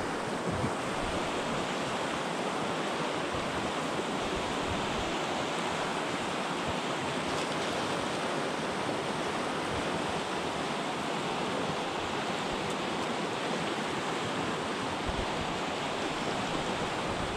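Steady rushing of a fast mountain river running over rapids and boulders.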